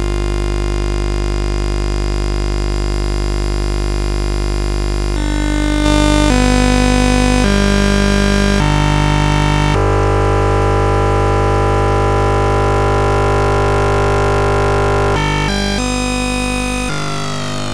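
Oscilloscope music generated in OsciStudio and Max MSP: a dense, buzzing synthesized tone that also draws the cube figures on an XY display. Its pitch steps down several times about a third of the way through, then holds for several seconds, and near the end sliding tones come in.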